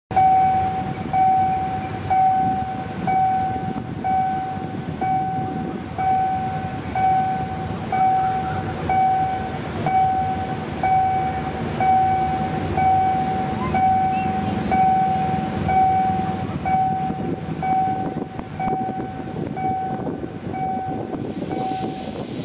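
Railway level-crossing warning signal sounding a repeated electronic tone about once a second, warning that a train is about to pass, over a steady low rumble.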